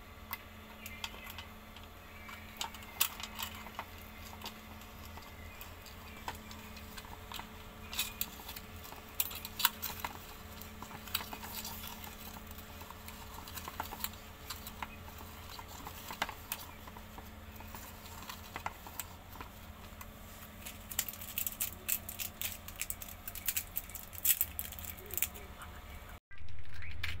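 Small plastic toy meat grinder being handled and worked with marshmallow candies inside: irregular light clicks, taps and rattles of hard plastic over a faint steady hum. The sound breaks off briefly near the end.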